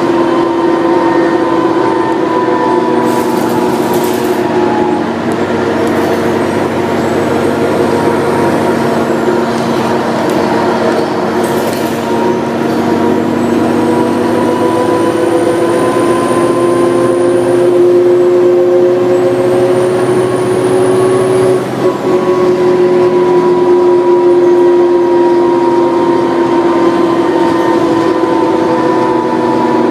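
Inside a New Flyer D40LF diesel transit bus under way: steady engine and drivetrain whine, its pitch slowly rising and falling with road speed, over road noise. Two brief hisses come about 3 and 12 seconds in.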